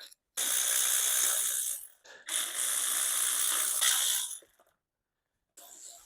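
Power ratchet spinning out bolts on an engine's rear plate, in two runs of about one and a half and two seconds, then a fainter rattle near the end.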